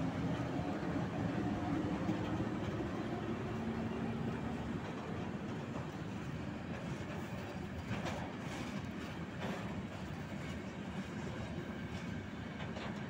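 Freight train passing close by: the tail of a VL10 electric locomotive with a steady hum in the first few seconds, then open freight wagons rolling past, wheels rumbling and clattering on the rails. A few sharper clanks come about eight and nine and a half seconds in.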